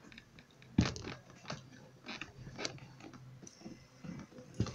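A small fidget spinner being handled and flicked in the fingers: scattered clicks and knocks of fingers on its plastic. The sharpest knocks come about a second in and near the end.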